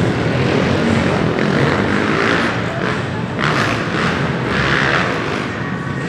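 Small dirt bike engines running around an indoor arenacross track, revving up and easing off several times in the hall.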